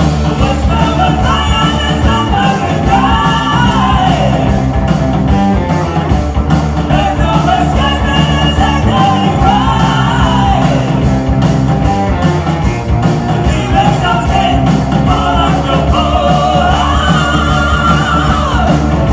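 Heavy metal band playing live: electric guitars and a drum kit, loud, with high wavering lead lines sliding up and down over the top.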